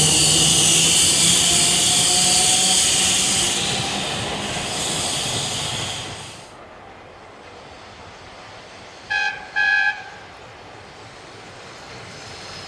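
Adelaide H type tram running round a curve, its wheels squealing high and steady, until the sound drops away about six seconds in. About nine seconds in, the tram gives two short toots on its horn.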